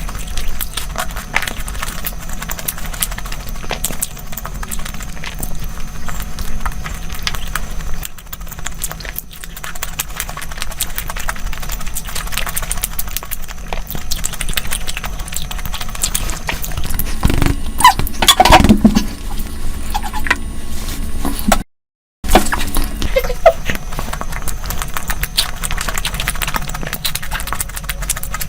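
Close-miked chewing and eating sounds: a dense run of small wet clicks and crunches, louder for a couple of seconds a little past halfway. The sound cuts out completely for a moment about three quarters through.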